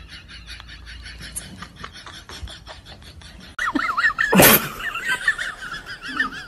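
A sudden loud burst about four and a half seconds in, followed by a high, wavering animal cry. Before that, a faint fast regular clicking.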